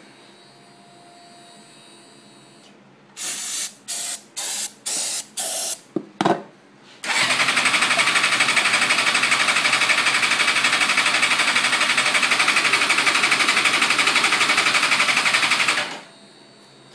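Suzuki GSX-R600 inline-four being cranked by its electric starter. There are five short bursts of cranking, then a click and about nine seconds of steady, fast, even cranking that stops abruptly without the engine ever catching. It turns over but won't fire, which the owner takes to mean it isn't getting spark.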